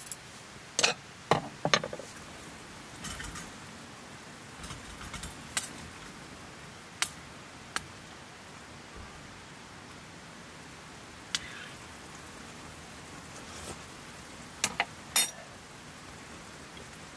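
Scattered clinks and knocks of cookware and utensils being handled, with a cluster in the first two seconds and another near the end, over a steady hiss.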